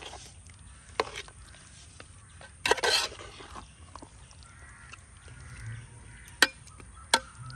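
Metal spoon stirring thick gravy in a metal cooking pot: sharp clinks of the spoon against the pot, one about a second in and two near the end, and a short louder scrape around three seconds in.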